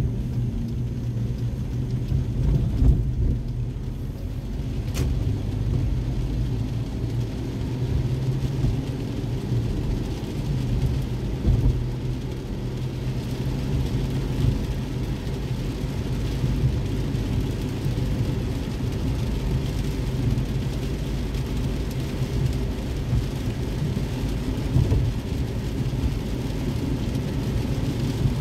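Car driving on a wet road, heard from inside the cabin: a steady low rumble of engine and tyres with a fainter hiss of rain and road spray. A single click about five seconds in.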